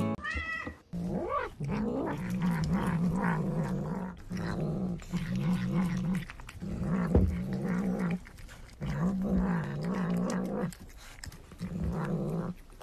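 A domestic cat growling as it eats, in long wavering phrases broken by short pauses.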